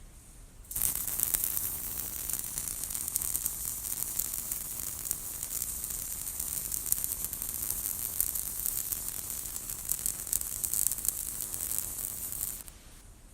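Four-torch automatic welding machine's arcs welding a rack beam, a steady crackling sizzle. It starts suddenly about a second in and cuts off near the end.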